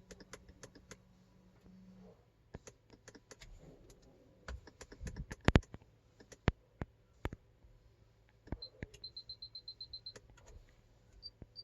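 Irregular sharp clicks and taps, like buttons and controls being pressed, with a quick run of about ten short high electronic beeps a little under two-thirds of the way through. No music is playing yet.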